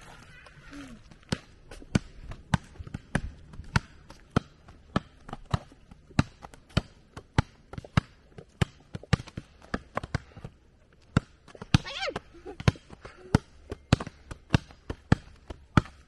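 A small ball bounced again and again on an asphalt road, patted down by hand, about two sharp bounces a second. A brief voice is heard near the twelve-second mark.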